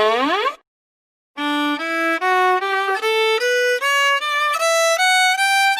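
A violin playing a rising scale of about a dozen even notes, climbing well over an octave, as a musical sound effect. Just before it, a held tone slides sharply up in pitch and cuts off.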